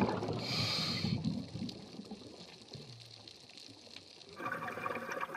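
Underwater sound of a scuba diver breathing through a regulator: a gurgle of exhaled bubbles in the first second, then quieter water, then the hiss of an inhale starting about four seconds in.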